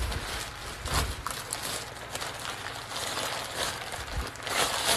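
Thin plastic packaging bag rustling and crinkling as it is torn open by hand and its contents pulled out, with a louder burst of crinkling near the end.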